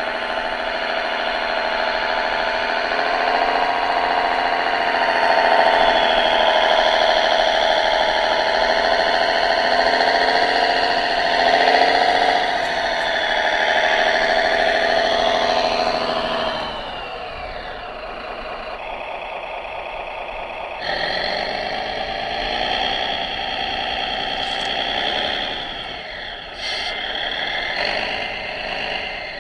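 Radio-controlled New Holland model tractor driving through sand, its drive giving a steady mechanical drone that wavers in pitch. The drone drops and changes tone about halfway through, then picks up again.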